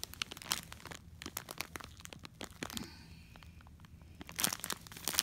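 Clear plastic bags of resin diamond-painting drills crinkling as they are handled, in irregular clicks and rustles, with a louder burst about four and a half seconds in.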